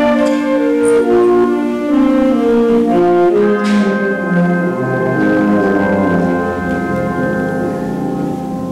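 High school symphonic band playing: sustained brass and woodwind chords over a moving lower line, with a cymbal crash about three and a half seconds in.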